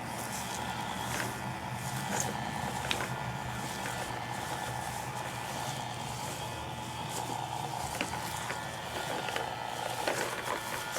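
Craftsman toy lawnmower being pushed, giving a steady engine-like hum with a few short plastic clicks.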